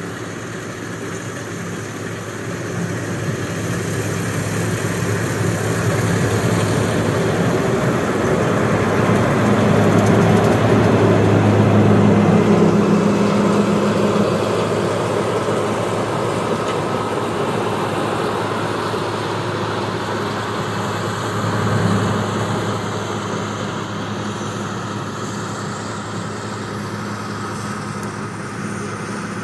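John Deere 9660 STS combine harvesting corn: its diesel engine and threshing machinery running with a steady hum. It grows louder as the machine comes close, loudest a little over a third of the way in, then fades slowly as it moves away.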